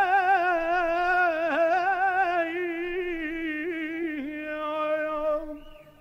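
A singer holding one long note with vibrato in a Lebanese Arabic song, with a few quick dips in pitch as ornaments, fading out near the end.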